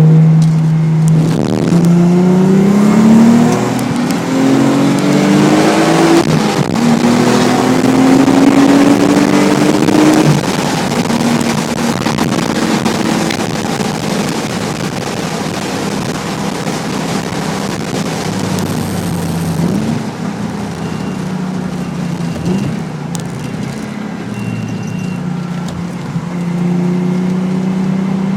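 Nissan 300ZX's V6 engine through an aftermarket Specialty Z exhaust, accelerating hard and upshifting: the pitch climbs, drops at each shift and climbs again three times over the first ten seconds. It then runs at a lower, steadier note, lighter on the throttle, and climbs again near the end.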